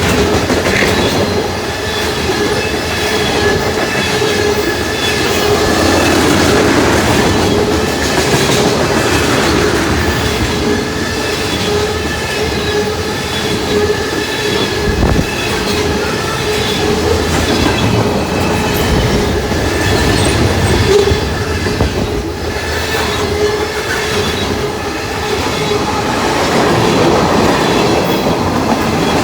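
Freight train rolling past, a loud steady rumble of wheels on rail with thin squealing tones over it.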